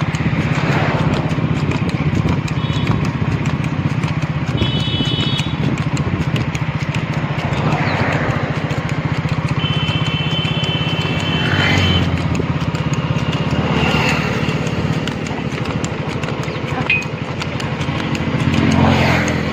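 A motorcycle engine running steadily at road speed, with wind rushing past the bike it is filmed from.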